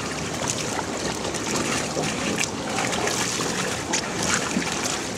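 Indoor swimming pool ambience: a steady wash of water lapping and splashing, with a few faint knocks.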